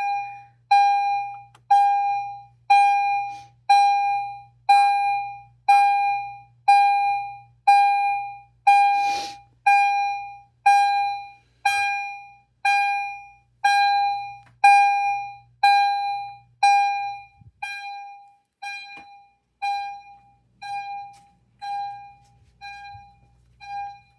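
EST Genesis remote chime sounding on an alarm: a single struck chime tone repeating about once a second, each one ringing out and decaying before the next, growing fainter over the last third. A single sharp click about nine seconds in.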